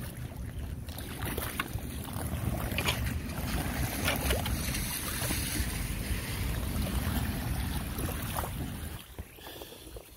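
Floodwater draining into a street storm drain cleared of leaves, a steady rushing noise under heavy wind buffeting on the microphone. It drops quieter about nine seconds in.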